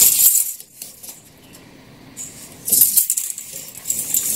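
Scouring pad soaked in kerosene scrubbed back and forth along a steel clock mainspring to strip old grease and dirt, heard as a high hissing scrub. The strokes stop soon after the start and resume after about two seconds.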